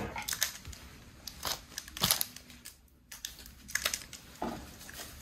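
Foil Pokémon booster pack being worked open by hand: irregular crinkling and crackling of the wrapper, with a brief lull about three seconds in.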